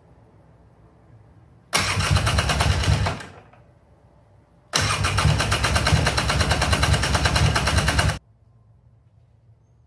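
Two start attempts on a 1996 Polaris Sportsman 400's liquid-cooled two-stroke engine with the choke on, using the electric starter: a short burst about two seconds in that winds down, then a longer one of about three and a half seconds that cuts off suddenly.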